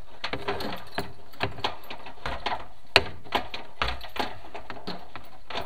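Irregular clicks and knocks of a chimney inspection camera head bumping and scraping against the masonry inside a fireplace flue as it is maneuvered, with one sharper knock about three seconds in.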